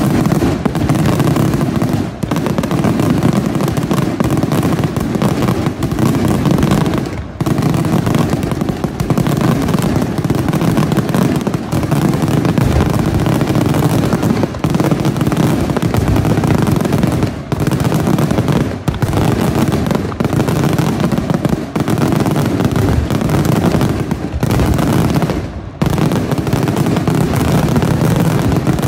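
Daylight fireworks barrage: a dense, almost unbroken run of rapid bangs from aerial shells bursting in quick succession, with only a few brief lulls.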